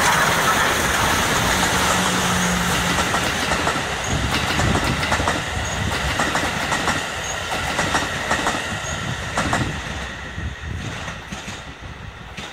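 The C57 1 steam locomotive passing close, then its passenger coaches rolling by with their wheels clicking irregularly over the rail joints. The sound fades near the end as the train moves away.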